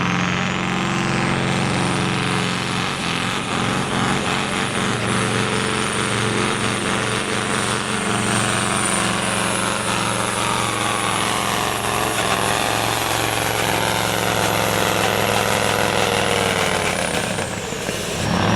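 Competition pulling truck running flat out under load for a long pull, its engine steady and strong with a high whine that climbs over the first couple of seconds and holds. Near the end the whine and engine fall away as the throttle comes off.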